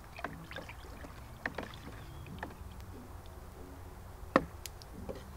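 A stick stirring water in a plastic bucket, mixing in a dose of insecticide concentrate: sloshing with irregular knocks of the stick against the bucket, the loudest about four seconds in.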